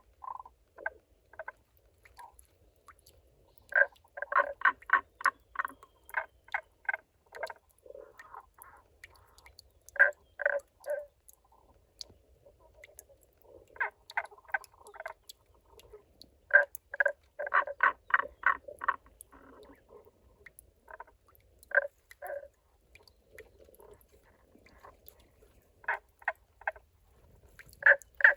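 Tago's brown frogs calling from a spring in a rock crevice: repeated runs of quick rolling pulses, about four or five a second, in bouts of a second or more with short pauses between.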